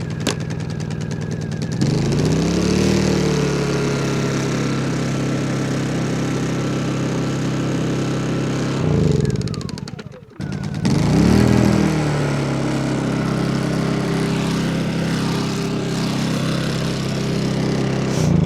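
Portable gas generator engine running steadily, its pitch swooping up and down twice as it takes the load of an electric log splitter's motor straining to start. The splitter has been sitting unused and its motor turns with heavy resistance, overloading its power supply.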